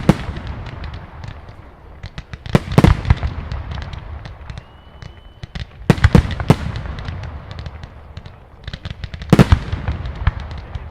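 Display fireworks going off: four heavy bangs about three seconds apart, each followed by a cluster of smaller sharp reports and crackles, over a low rumble.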